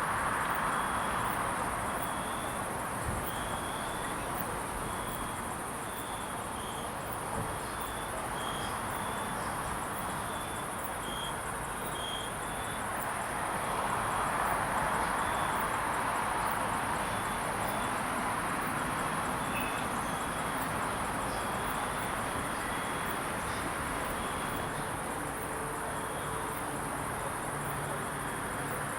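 Crickets chirping at night: a continuous high trill with a second, irregular run of chirps over it. Beneath them is a steady hiss of background noise that swells a little around the middle.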